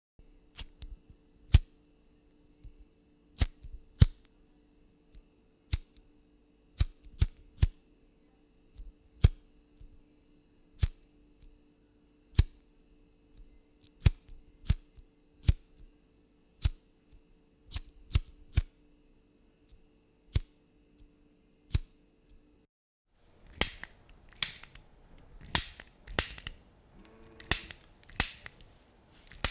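Lighters being struck again and again: single sharp clicks every second or two, then, about two-thirds of the way through, a different lighter with louder, closer-spaced clicks and rougher strikes.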